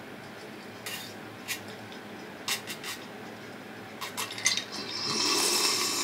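Eating utensils clicking against a bowl a few times while the last rice and oil are scraped up, then a longer, louder swishing sound about five seconds in.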